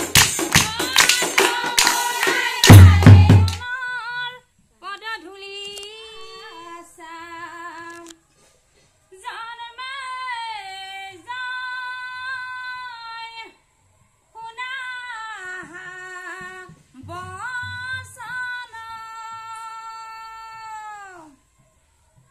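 Nagara drums, brass cymbals and group hand-clapping play together, ending on a heavy drum stroke about three and a half seconds in. A woman then sings an unaccompanied solo line of nagara naam devotional song, in long held, gliding phrases separated by short pauses.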